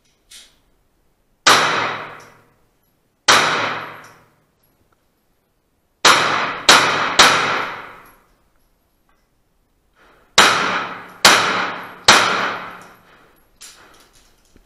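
Pistol shots echoing off the concrete walls of an indoor range, each with a long ringing tail: two single shots a couple of seconds apart, then a quick string of three, a pause of about three seconds, and another quick string of three.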